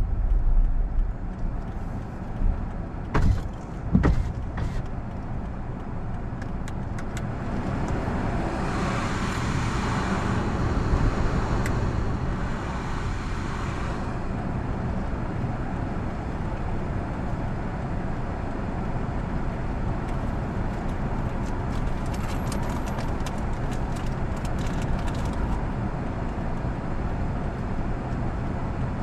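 Car stopped at traffic lights with its engine idling under steady road-traffic rumble. A few sharp clicks come about three to five seconds in, and a louder hiss swells and fades for several seconds around the middle.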